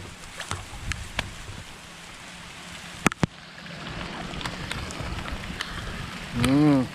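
Rain falling steadily, with scattered small clicks of drops and a sharper click about three seconds in. Near the end comes a short voiced sound that rises and then falls in pitch, the loudest moment.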